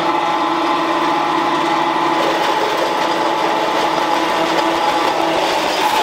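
An electric workshop machine's motor running steadily, with an even whine over a loud mechanical hum.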